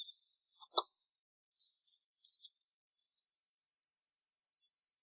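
Faint insect chirping in short high-pitched bursts that come again and again, with one short knock just under a second in.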